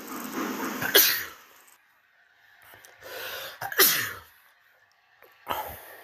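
A woman blowing loud kisses into the phone microphone, three short breathy bursts a couple of seconds apart.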